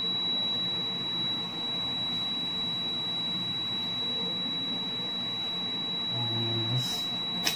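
Steady background hiss with a constant high-pitched whine, then two short clicks near the end.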